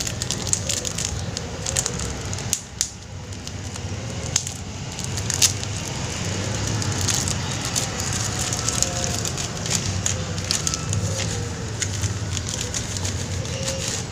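Crackling and rustling with many sharp clicks, over a steady low hum.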